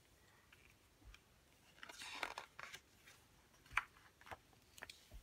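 A page of a hardcover picture book being turned by hand: a soft paper rustle about two seconds in, followed by a few faint clicks as the page is laid flat.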